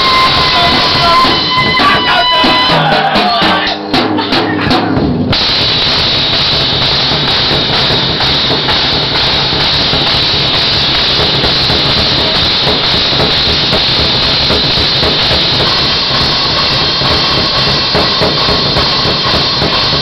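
Live band with a drum kit playing a loud breakdown. A short run of pitched notes stepping downward opens it, then about five seconds in the full band comes in as a dense, harsh wash of drums, cymbals and instruments.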